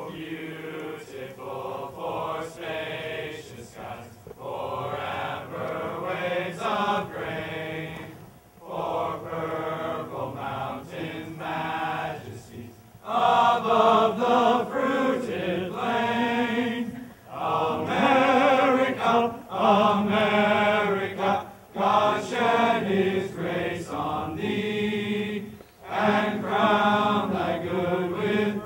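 A choir of young men singing a song together in phrases of a few seconds each, louder from about halfway.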